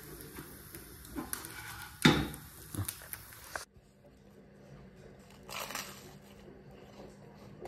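Scattered clicks and knocks of objects being handled, with one loud thump about two seconds in; the background then cuts out suddenly, and a brief soft rustle follows later.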